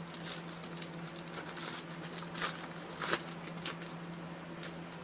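Trading cards being handled: soft, scattered clicks and rustles as cards slide against each other and are flicked through, two a little louder past the middle, over a faint steady hum.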